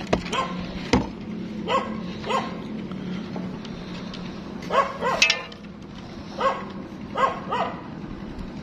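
Dog giving short, high yelping barks with an up-and-down pitch, coming in ones, pairs and a quick run of three. Two sharp knocks sound in the first second.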